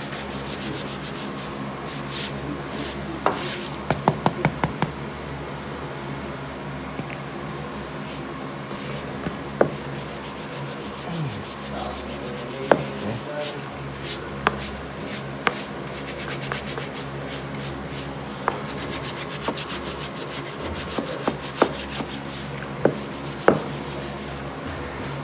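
Brass-bristle hand brushes scrubbing wet saltillo terracotta tile in rapid back-and-forth strokes, with occasional sharp knocks of a brush against the tile, over a steady low hum. The scrubbing is stripping old sealer and whitewash out of the tile and grout.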